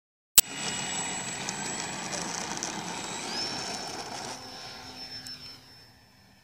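Electric motor and propeller of a Parkzone Trojan T-28 radio-controlled model plane running at takeoff power with a high whine, its pitch rising about three seconds in, then fading as the plane rolls away and takes off. A sharp click comes just before it starts.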